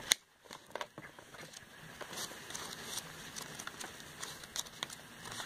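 Glossy catalogue pages being flipped through by hand: a run of quick, faint paper flicks and rustles.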